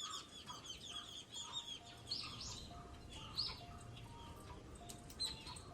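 Wild birds chirping and twittering: a busy flurry of quick high chirps for the first two seconds, then separate rising-and-falling calls every second or so, over a faint low background rumble.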